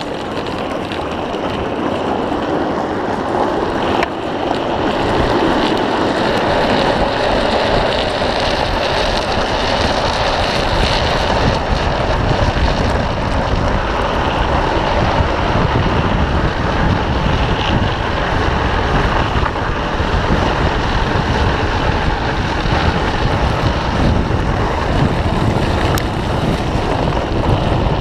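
Steady rush of wind on the microphone together with the hiss and scrape of a drift trike's PVC-sleeved rear wheels sliding on asphalt during a downhill run. There is a sharp knock about four seconds in.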